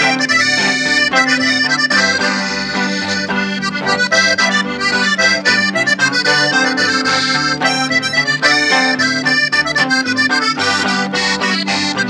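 Norteño instrumental break: a Hohner Corona diatonic button accordion plays a busy ranchera melody, backed by a pulsing bass line and strummed bajo sexto.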